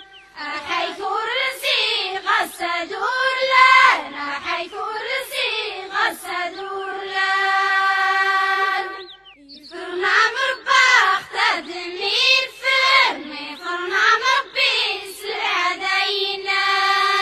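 A single high voice singing unaccompanied: a slow, winding melody with long held notes, breaking off briefly about nine seconds in before going on.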